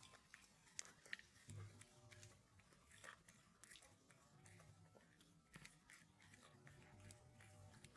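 Faint, irregular wet clicks and smacks of a small puppy's tongue lapping a milky drink from a glass.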